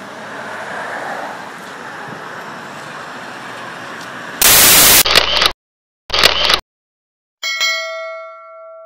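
Steady street traffic noise. About four and a half seconds in it is cut off by a very loud burst of static hiss, followed by short choppy bursts with silence between and a ringing chime that fades away.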